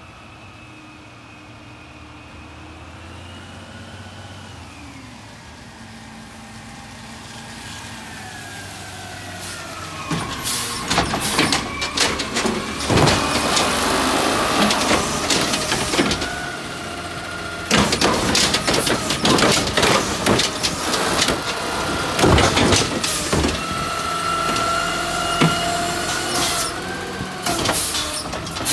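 Automated side-loader garbage truck with an Amrep body pulling up, its engine and hydraulic whine growing louder and shifting in pitch as it approaches. From about ten seconds in its hydraulic arm grips, lifts and dumps a wheeled cart, with a steady whine under repeated clanks and bangs as the cart is shaken out and set back down.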